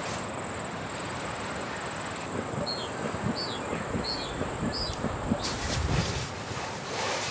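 Outdoor ambience of wind with a steady high-pitched insect trill, broken by a few short falling chirps in the middle and some soft low bumps. The trill stops shortly before the end.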